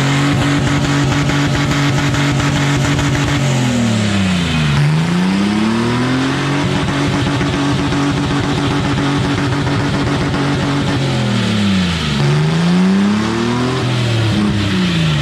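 Car engine held at high, steady revs under hard throttle in a burnout, the revs dropping and climbing back up about a third of the way in and twice more near the end.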